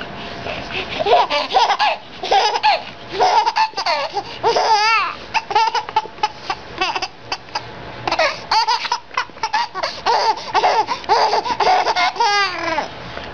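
A baby laughing in repeated bursts of giggles and belly laughs, rising twice into high, wavering squeals: once about five seconds in and again near the end.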